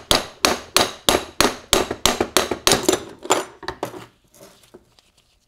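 Steel hammer tapping the end of a T5 five-speed transmission's main shaft with quick, light metal-on-metal blows, about four a second, driving the third-gear synchronizer assembly off the shaft. The shaft is not pressed tight and moves under the taps. The blows stop a little after three seconds in, followed by a few faint metal clinks.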